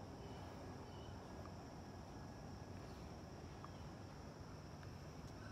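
Faint outdoor ambience: a steady high-pitched insect drone over a low, even background rumble.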